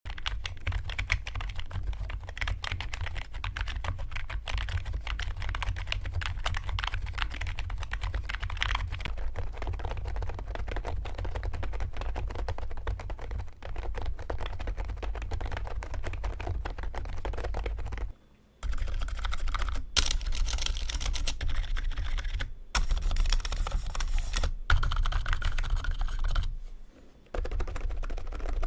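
Continuous fast typing on a COX CK20TH membrane keyboard: a dense run of soft key presses. It breaks off briefly twice, about two-thirds of the way through and again near the end, and the later stretches carry a few louder, sharper strikes.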